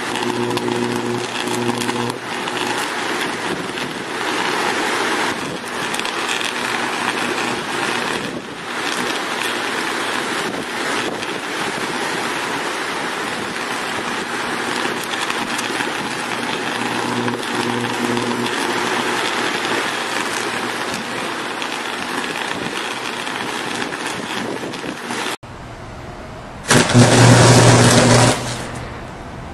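Sustained high-voltage electrical arc at a power-pole insulator: a continuous harsh buzzing hiss over a steady low hum. Near the end, after a break, a louder arc buzz lasts about a second and a half.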